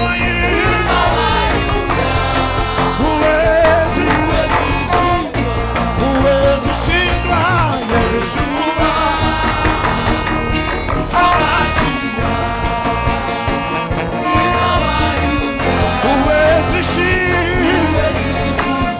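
Live worship band playing a gospel song, with voices singing over sustained chords and a steady bass.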